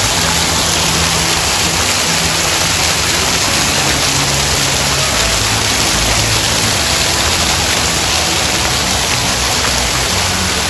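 Dancing water fountain jets shooting up and falling back into the pool: a steady rushing splash of water.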